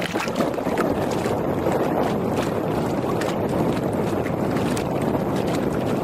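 Water rushing and slapping against the hull of a small boat under way, with wind buffeting the microphone and scattered small splashes.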